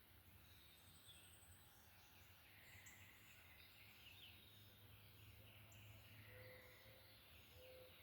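Faint dawn chorus of many songbirds singing over one another, with a run of low, level notes in the last couple of seconds, over a steady low hum.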